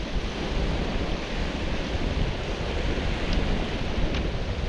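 Strong wind buffeting the microphone in a steady low rumble, over small waves washing onto a shingle shore.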